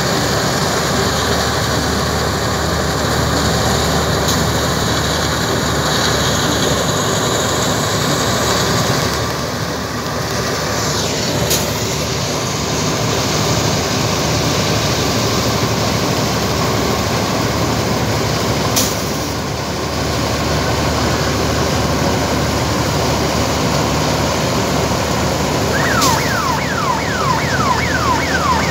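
Lotey-787 combine harvester running steadily under load, its engine and threshing drum working as it cuts and threshes the standing crop. A series of quick falling chirps is heard near the end.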